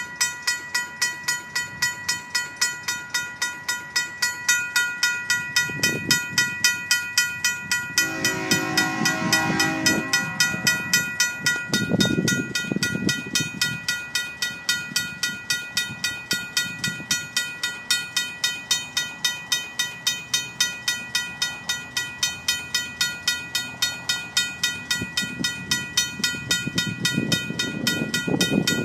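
RACO mechanical crossing bell ringing steadily at about three strikes a second, warning of an approaching train. About eight seconds in, the approaching locomotive's horn sounds one chord for about two and a half seconds, and a low rumble swells a few times underneath.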